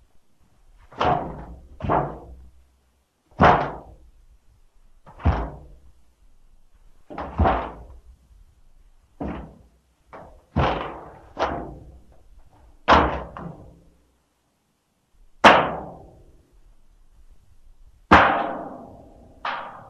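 Sound-effects bodyfalls: a series of about a dozen separate thuds of a human body hitting the ground, one to two and a half seconds apart, some in quick pairs, each dying away quickly.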